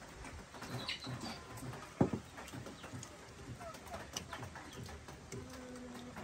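Spoons clinking and scraping in stainless steel bowls as two people eat, with one sharp louder knock about two seconds in. A dove coos briefly near the end.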